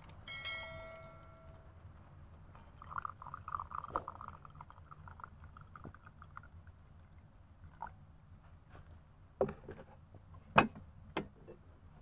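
Tea poured from a copper teapot into a glass tea cup, the stream splashing and gurgling into the glass for a few seconds. It opens with a ringing glass clink, and near the end come a few sharp knocks, the second the loudest.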